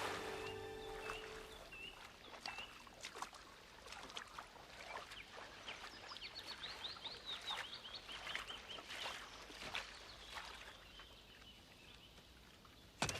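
Outdoor woodland ambience: birds give short repeated rising chirps and a rapid trill midway, over irregular footsteps, with one sharp snap near the end. Music fades out at the start.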